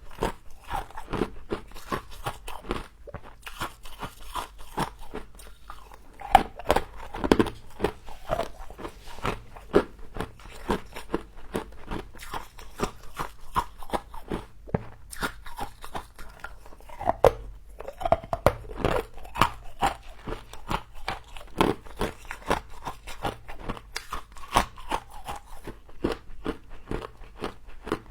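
Crunching and chewing of compacted humidifier frost: a dense run of crisp crackles with louder bites scattered throughout.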